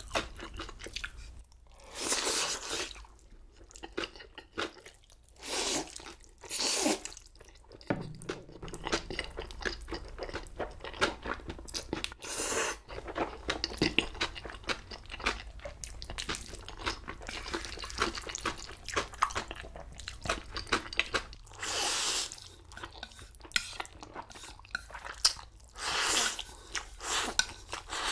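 Close-miked eating of black-bean-sauce noodles (jjajangmyeon). A slurp of saucy noodles lasting under a second comes every few seconds, and between the slurps there is wet chewing with crisp crunches.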